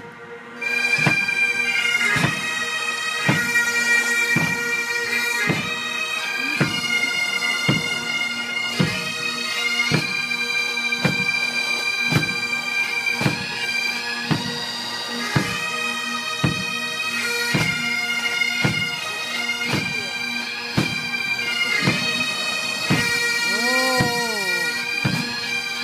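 Pipe band playing: massed bagpipes sounding a melody over their steady drone, with drums keeping an even beat of about one heavy stroke a second. The band strikes up about half a second in.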